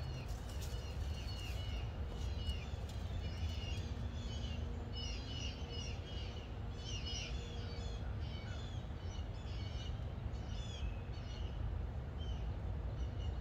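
Birds chirping, many short repeated calls, over a low steady background rumble.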